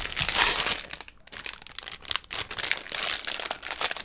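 Clear plastic wrapper on a large chocolate chip cookie crinkling and crackling as fingers pick and pull at it to open it. The crackle is densest in the first second, eases briefly, then keeps on in smaller bursts.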